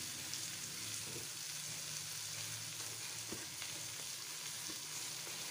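Onion, tomato and chili-powder masala sizzling in a karahi on the stove: a steady frying hiss.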